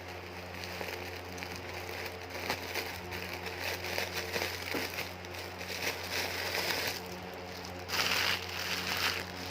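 Plastic packaging crinkling and rustling in irregular handfuls as a small plush toy is taken out of it, loudest near the end.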